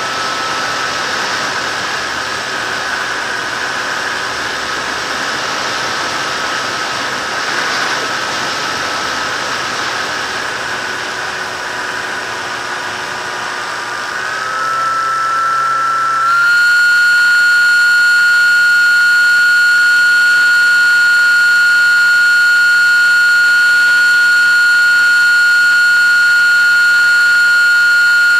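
Electric motor and propeller of an FPV model aircraft running steadily, a high whine over rushing air. About 14 s in, the whine climbs in pitch as the motor speeds up. A couple of seconds later it settles into a louder, steadier whine.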